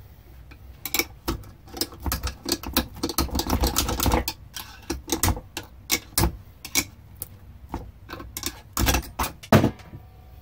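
Irregular light clicks and knocks of hand tools working at a gear stuck on a power drill motor's shaft held in a vise; the gear is not coming off easily. The clicks start about a second in, come thickest a few seconds in, and the two loudest knocks fall near the end.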